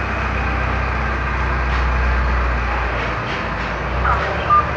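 Steady low background rumble. About four seconds in the rumble drops away as the test call on the Nokia 150 connects on loudspeaker, and short tones and voice-like sounds begin from the phone's speaker.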